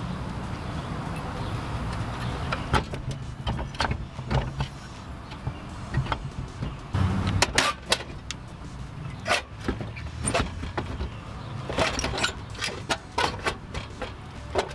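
Irregular clicks, knocks and rattles of hands pulling at wiring and parts behind a squarebody Suburban's stripped-out dashboard, over a steady low rumble.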